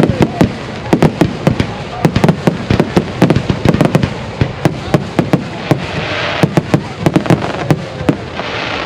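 Fireworks going off in a rapid, irregular string of sharp cracks and pops, many a second, with a stretch of hissing about six seconds in.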